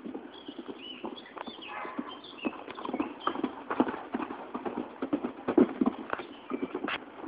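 Hoofbeats of a 138 cm pony mare cantering on an arena surface, an uneven run of dull thuds that grows louder as she nears the camera.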